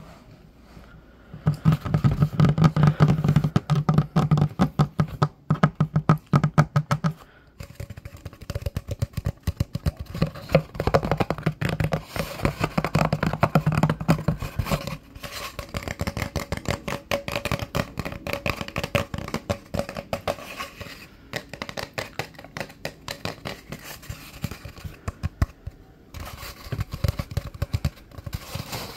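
Rapid fingertip and fingernail tapping on a hollow spiral-wound cardboard tube, with a low hollow ring under the taps. The tapping breaks off briefly twice.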